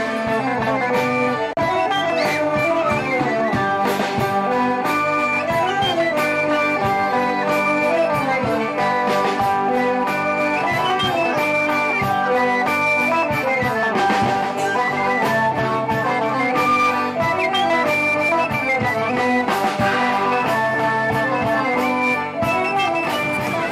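Lively instrumental band music with a steady beat, led by horns over plucked strings.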